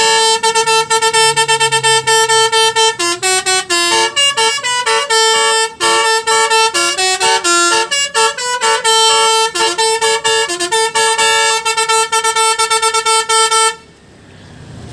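Telolet basuri bus horn playing a fast tune of quickly changing notes, stopping abruptly near the end.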